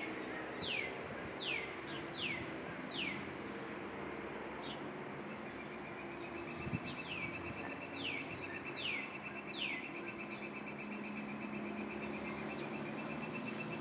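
Songbirds singing: one bird gives loud down-slurred whistles in two runs of four or five, and another holds a steady rapid trill on one pitch through the second half.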